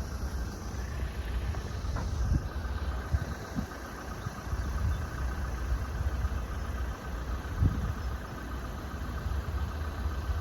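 Engine of a road vehicle idling steadily with a low rumble.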